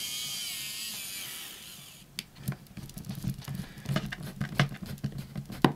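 Small electric screwdriver driving a screw into a laptop's bottom cover, a high-pitched motor whine that fades away over the first two seconds. Light clicks and taps of handling follow, with a sharper click near the end as a cover clip snaps into place.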